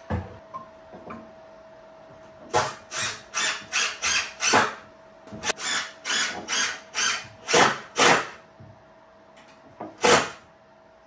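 Power drill run in short bursts, driving screws into wood: about a dozen quick pulses at roughly two a second, then one more a couple of seconds later. A single knock comes at the very start.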